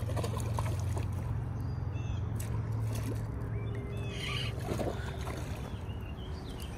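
River water splashing and trickling as a hand moves in it, with small birds chirping a few times. A steady low rumble underneath fades about halfway through.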